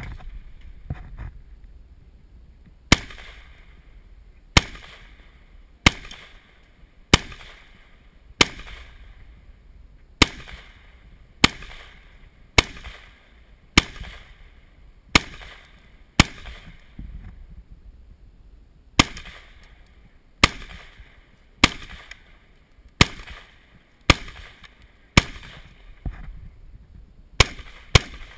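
H&K MR223 semi-automatic rifle in .223 firing single aimed shots, about one a second, some twenty shots in all with a short pause midway.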